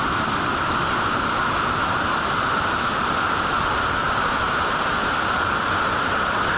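Waterfall water rushing: a loud, steady hiss that does not change.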